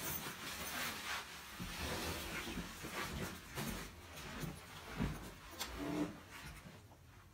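Fabric rustling and scuffing of a travel backpack being swung onto the back and carried, with irregular soft thuds of handling and footsteps.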